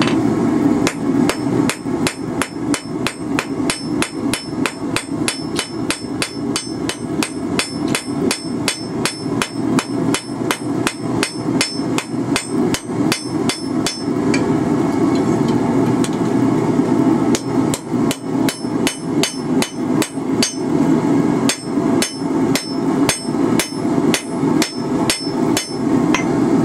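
A hand hammer forging red-hot rebar on a steel anvil: a rapid run of ringing blows, broken by a pause of a few seconds about halfway through. A steady low hum runs underneath.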